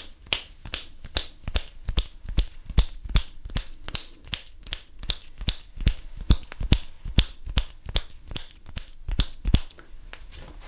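A quick run of finger snaps, about four a second, made all around a large-diaphragm studio condenser microphone set to its omnidirectional pattern, so that it picks them up from every side.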